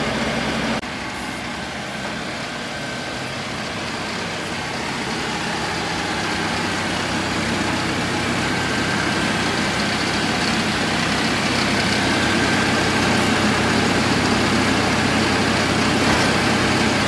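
Mahindra tractor's diesel engine running steadily at close range. It dips about a second in, then grows slowly louder.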